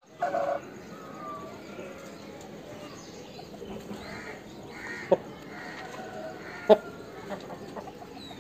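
Birds calling in a farmyard: a short, loud call right at the start, then softer scattered calls, with two sharp clicks past the middle.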